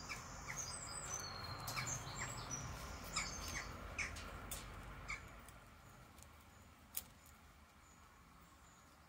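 Small birds chirping in the first few seconds, with scattered sharp clicks of plastic building bricks being handled and pressed together; one click stands out about seven seconds in.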